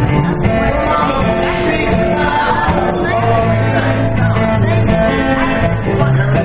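A song played live: a man singing over guitar, with held low notes sounding underneath.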